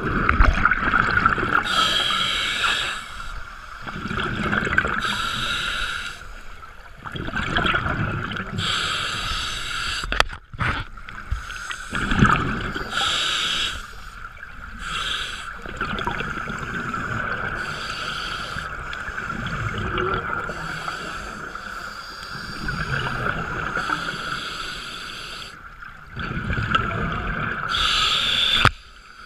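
Scuba regulator breathing heard underwater: a hiss on each inhalation alternating with the low gurgling rumble of exhaled bubbles, one breath every three to five seconds, over a steady hum.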